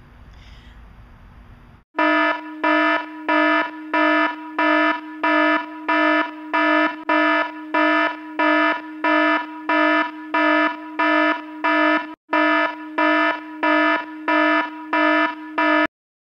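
An electronic alarm beeping: a buzzy tone repeating evenly about one and a half times a second, starting about two seconds in, with one short gap near twelve seconds, and cutting off just before the end.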